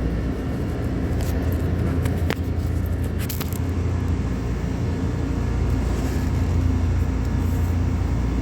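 Steady low mechanical hum of running machinery, with a few light clicks about two and three seconds in.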